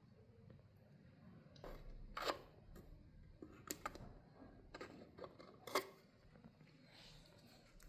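Faint room tone with a few soft, scattered clicks and taps, the clearest three about two, four and six seconds in, like small objects being handled.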